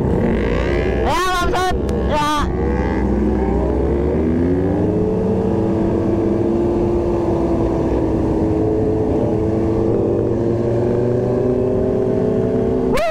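Motorcycle engine running: its note rises from about three seconds in, then holds steady, over a heavy low wind rumble on the microphone. A few shouted words about a second in.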